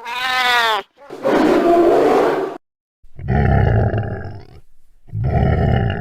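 A series of deep roars, four separate calls, the first with a falling pitch.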